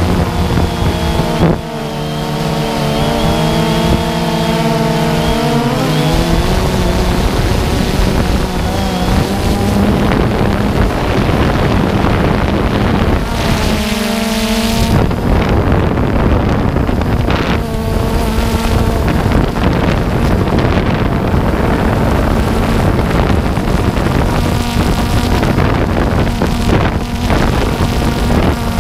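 A DJI Phantom quadcopter's motors and propellers running, heard on board with wind on the microphone. It is a steady hum whose pitch wavers and shifts a few times as the drone moves.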